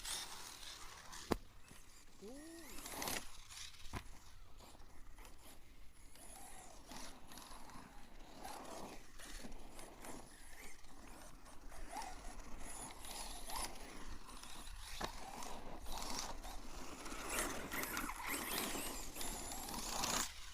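1/7-scale Arrma Mojave electric RC monster-buggy running on a dirt track, its drivetrain making a crunchy grinding, ratchet-like noise from a broken differential. There are a couple of sharp knocks, about a second in and again near four seconds.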